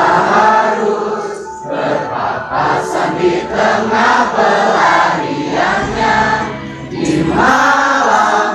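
Live band music with a crowd singing along, many voices together. The sound swells, eases off in the middle and swells again near the end.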